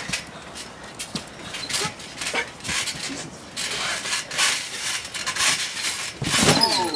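Scuffling, rubbing and irregular thumps of two people wrestling on a trampoline mat. About six seconds in it grows louder as they fall onto the mat, with a drawn-out cry whose pitch wavers up and down.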